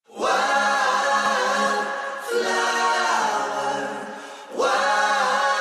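Opening of a pop song: layered, harmonised voices singing without drums or bass, starting abruptly out of silence and moving in phrases about two seconds long.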